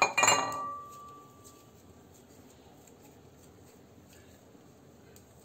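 A ceramic bowl knocked twice in quick succession, ringing with a clear tone that fades over about a second and a half. After that there are only faint sounds of dough being handled.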